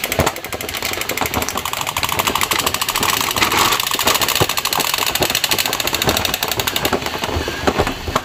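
Battery-powered crawling soldier action figure holding a toy rifle, running with a fast, even mechanical rattle like a toy machine gun.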